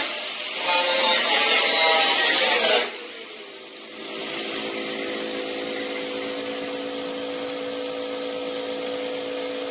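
A power tool runs under load with a loud hiss and a wavering whine, and stops about three seconds in. A quieter, steady hum with a few fixed tones follows.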